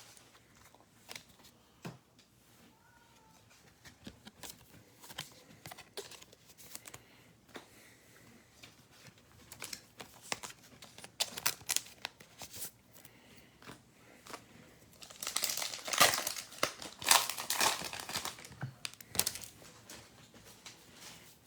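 Foil wrapper of a football trading-card pack being torn open and crinkled, in scattered crackles that grow busiest and loudest about three quarters of the way through.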